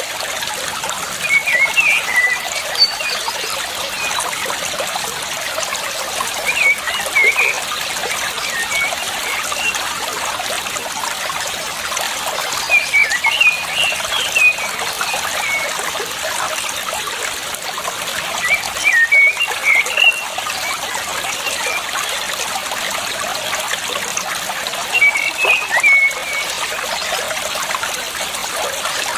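Water trickling steadily, with a songbird singing a short chirping phrase about every six seconds, five times over.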